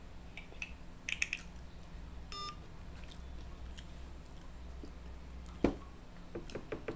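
Smartphone handled after a call: a few light taps, a short electronic beep about two seconds in, then a sharp knock a little before the end, over a steady low hum.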